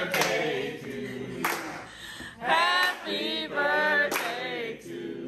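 Several voices singing together, with sharp claps about every second and a half.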